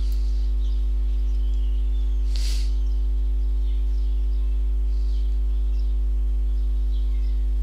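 Steady electrical mains hum picked up by the recording microphone, with one short soft rush of noise about two and a half seconds in.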